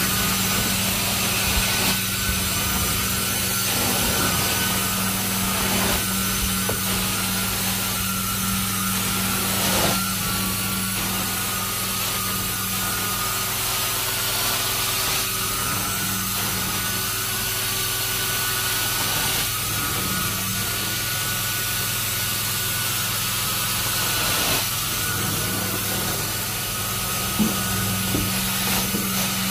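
Carpet-cleaning extraction wand working across carpet: a steady suction hiss over a constant low hum from the extractor machine, with the wand head rubbing over the pile in strokes every few seconds.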